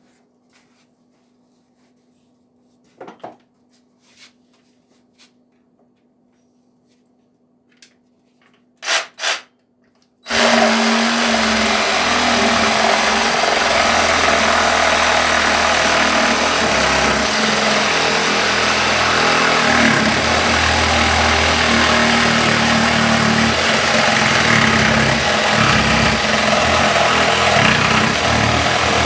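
DeWALT DCS380B 20-volt cordless reciprocating saw cutting through thick plywood, starting suddenly about ten seconds in and then running loud and steady. Before it starts there are a few faint handling clicks and two sharp knocks.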